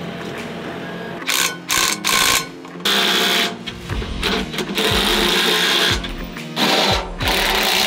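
DeWalt cordless impact driver run in repeated short bursts of rattling hammering, driving fasteners at the base bracket of a steel pipe rack, over background music.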